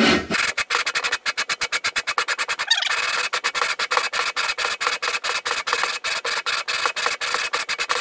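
Grinding compound rasping between a VW Beetle cylinder barrel and the seat on the engine case as the barrel is twisted back and forth by hand, in a fast, even rhythm of several strokes a second. The barrel's base is being lapped to the case to even out high spots so the joint seals without oil leaks.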